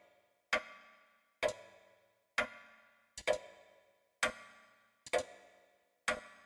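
Grandfather clock ticking at about one tick a second, each tick a sharp strike with a short metallic ring.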